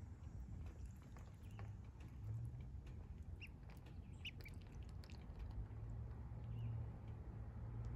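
Ducklings pecking and paddling in a shallow plastic dish of water, making scattered small taps and dabbling sounds, with a couple of short high peeps about three and four seconds in.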